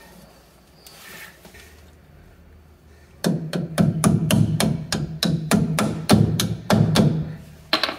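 A quick run of hammer taps, about four a second, starting about three seconds in, each with a short low ring. A hand-held bar or mallet is striking the lower shock-absorber mount and vise-grip clamp to press the bushing and washer together for the cotter pin.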